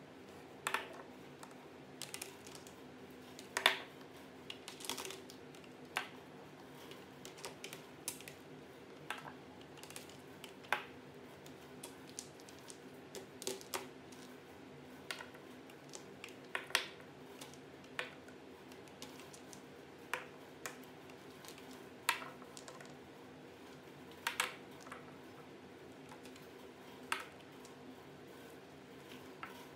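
Smooth river stones being set down one at a time on paper over a tabletop, giving irregular sharp clicks and knocks, about one every second or two, as stone meets table and the stones beside it. A faint steady hum runs underneath.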